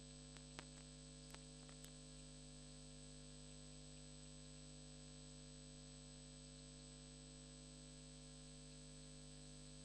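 Near silence: a faint steady electrical hum with hiss, and a few faint clicks in the first two seconds.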